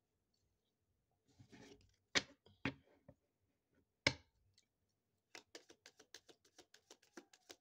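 A deck of cards being handled: a brief rustle, then several sharp taps of the deck against the tabletop, then from about two-thirds of the way in a rapid run of card clicks, about six a second, as the cards are overhand-shuffled in the hands.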